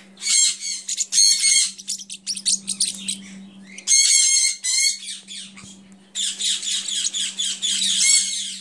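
Parrotlets chattering to each other with rapid, high, scratchy chirps. The chirps come in short bursts at first, then run almost without a break for the last couple of seconds.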